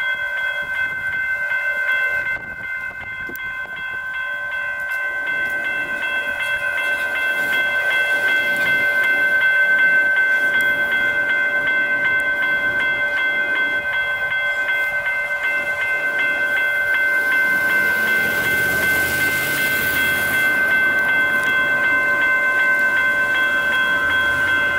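Railroad crossing warning bells ringing steadily while a train passes over the crossing, with a rush of rolling noise swelling about three quarters of the way through.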